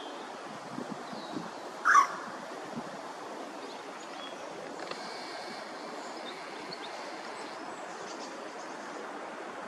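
A single short call from an unseen animal, rising in pitch, about two seconds in, over a steady wind-like outdoor hiss; faint high bird notes come and go later.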